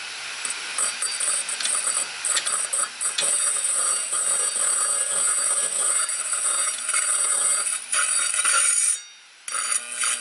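Screwdriver tip pressed against a spinning hard drive platter, a harsh, high scraping that wavers as the tip gouges rings into the platter's magnetic coating. It breaks off briefly about nine seconds in, then resumes.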